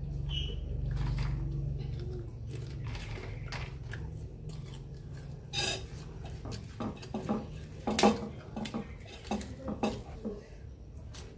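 Crockery and a metal spoon clinking and knocking in a ceramic soup bowl and plate during a meal, a scattered run of sharp clinks through the second half, over a steady low hum.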